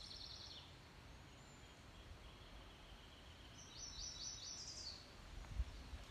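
Faint songbirds singing in the treetops: a short high trill right at the start and a louder, rapid trilled phrase about four seconds in, over quiet outdoor background. A low rumble comes in near the end.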